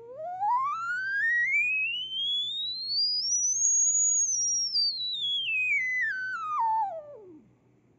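Sine test tone from a smartphone signal-generator app, played through the phone's speaker, gliding up from low to a high whistle near 7 kHz about four seconds in, then stepping back down in pitch and stopping near the end.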